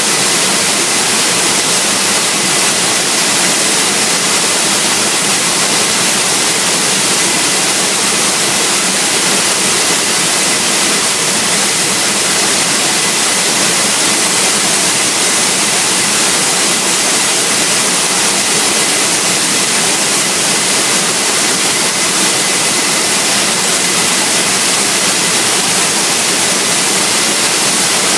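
Waterfall: loud, steady rush of falling water that never lets up.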